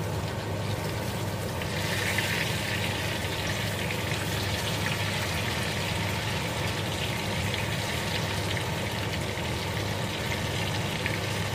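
Tempe frying in hot oil in a small saucepan: a steady sizzle with fine crackling, a little stronger about two seconds in, over a steady low hum.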